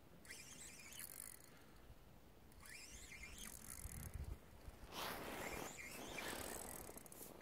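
Spinning reel being cranked during a lure retrieve, its winding heard faintly in several short bursts.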